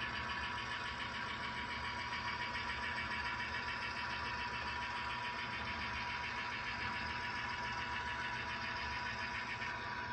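Model railroad boxcars and caboose rolling past on track: a steady whirring rumble of small metal wheels on rail, with a constant thin whine.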